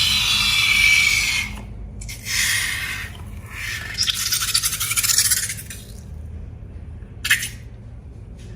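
Scraping and rubbing sounds in three stretches, then a single sharp click about seven seconds in.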